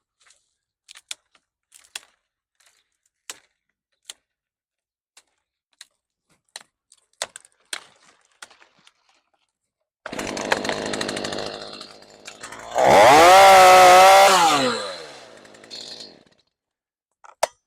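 A scattering of light clicks and snaps, then a Stihl MS 212 petrol chainsaw starts abruptly about ten seconds in, runs, revs up once for about two seconds and drops back, then falls quiet a couple of seconds later.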